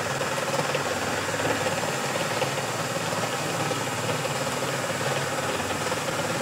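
Large wooden tanning drum turning, driven by an electric motor through a chain and sprocket, with sheepskins tumbling inside to be milled soft. A steady mechanical running with an even hum.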